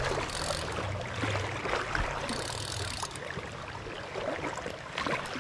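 Steady rush of fast river current in a high, rain-swollen stream, with a single sharp knock about two seconds in.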